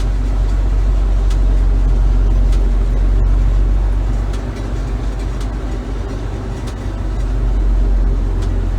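Gleaner M2 combine's diesel engine running steadily with a deep low drone as the combine creeps forward. The level sags a little past the middle and comes back up near the end.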